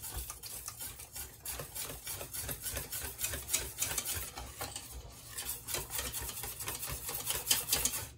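Wire whisk beating flour-and-water batter in a stainless steel bowl: rapid, steady strokes of wires scraping and clicking against the metal, a little louder near the end.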